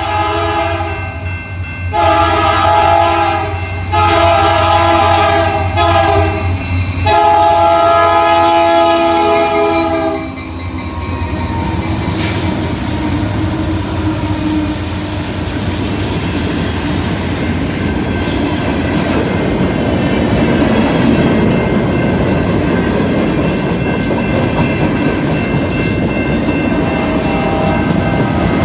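Freight locomotive air horn sounding for a grade crossing: the end of one blast, then three more separated by short gaps, the last held about three seconds and stopping about ten seconds in. Then the locomotives and freight cars of a CN train roll close past: the engines run and the wheels clatter steadily on the rails.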